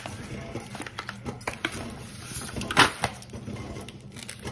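Hands working seasoning into raw chicken in a disposable aluminium foil pan: soft wet handling with scattered small clicks and rustles, and one louder crinkle about three seconds in.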